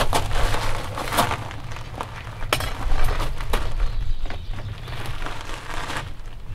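Small metal-melting furnace burning, with a steady low rumble and scattered sharp crackles and pops.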